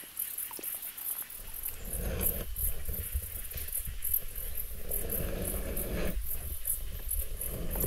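Insects chirping in a fast, even pulse of high-pitched notes, over a low rumble and swirl of water as a camera rig is pushed down into shallow water, starting about a second and a half in.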